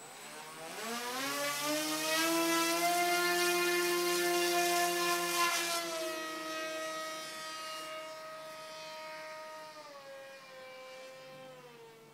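Radio-controlled flying wing's motor and propeller whining up in pitch over the first couple of seconds as it is hand-launched, then holding a steady tone. It steps down in pitch a few times and grows fainter as the plane flies away.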